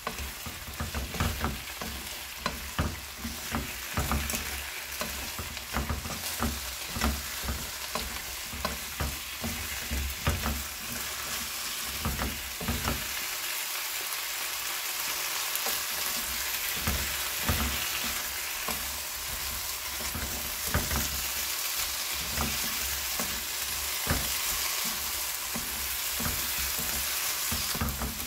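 Sundae (Korean blood sausage) and vegetables sizzling over high heat in a frying pan, with a steady hiss. Two spatulas stir and toss the food, making frequent sharp knocks and scrapes against the pan, busiest in the first half.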